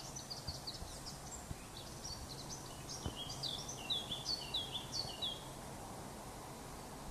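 A small songbird singing: a quick series of short, high notes that slide downward, repeated many times, over faint steady background noise. The song stops about five and a half seconds in.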